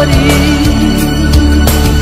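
Instrumental break of a Brazilian sertanejo love ballad: a held, slightly wavering lead melody over bass and a few drum hits, with no singing.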